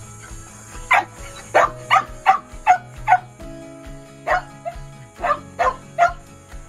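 A dog barking sharply about ten times in two quick runs, the second beginning a little past four seconds in, over steady background music.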